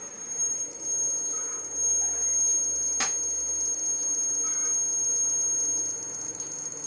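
Hybrid solar inverter giving a steady high-pitched electronic whine, with a single sharp click about three seconds in.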